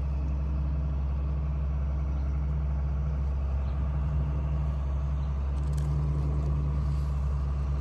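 Steady low motor hum, like an engine running, unchanging throughout.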